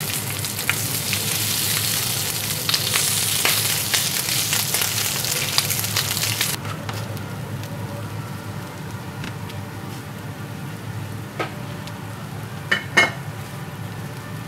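Scrambled eggs frying in butter in a non-stick pan: a loud sizzle that drops suddenly to a quieter sizzle about six and a half seconds in, with the spatula scraping and tapping against the pan and two sharp knocks near the end.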